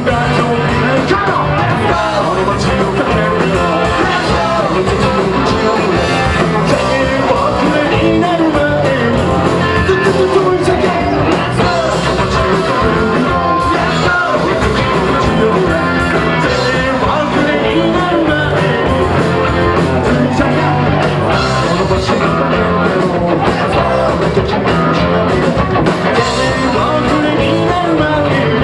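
Rock band playing live at a steady loud level: electric guitar and a sung lead vocal over a full band.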